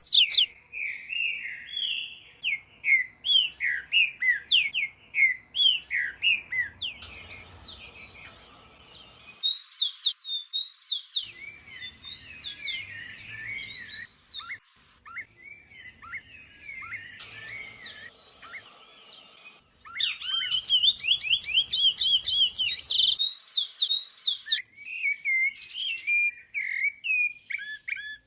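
Dawn chorus of several wild songbirds of the Atlantic Forest: many quick chirps and whistled, sliding notes from different birds overlapping, calling almost without a break.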